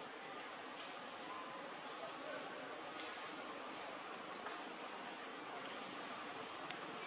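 Insects droning steadily at one high, unbroken pitch over a soft hiss of background noise, with a couple of faint clicks.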